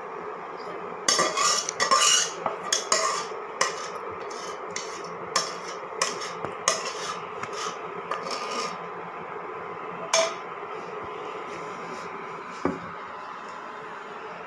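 A metal spoon clinks and scrapes against a steel cooking pot and a bowl while thickened milk is ladled out: a run of irregular clatters, then two single knocks near the end.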